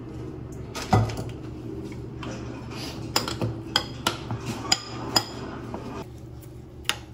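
Dishes and cutlery clinking and knocking: a heavier knock about a second in, then a run of sharp clinks in the middle and one more near the end.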